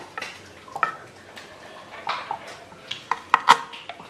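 Kitchen knife chopping garlic on a wooden cutting board: irregular sharp knocks of the blade against the board, with a quick cluster of louder strikes near the end.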